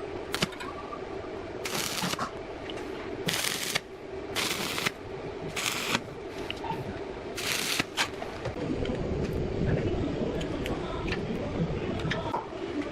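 Workshop power-tool noise: a steady motor hum, broken by five short, harsh noise bursts of about half a second each, unevenly spaced over the first eight seconds.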